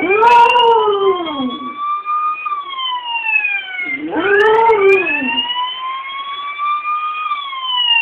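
Police siren wailing, its pitch slowly rising and falling. Over it a German Shepherd-type dog howls along twice, right at the start and again about four seconds in. Each howl rises and then falls over about a second and a half.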